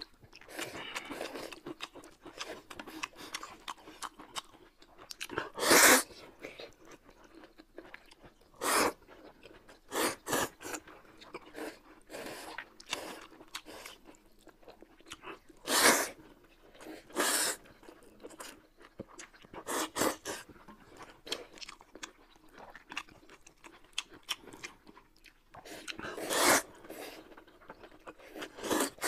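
Close-up eating sounds of people eating noodles in broth with chopsticks: repeated slurping of noodles, with chewing and crunchy bites in between. The loudest slurps come about six, sixteen and twenty-six seconds in.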